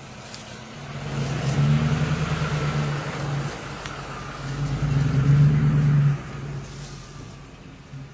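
A vehicle engine running at a steady pitch, getting louder twice as it works harder, then dropping back.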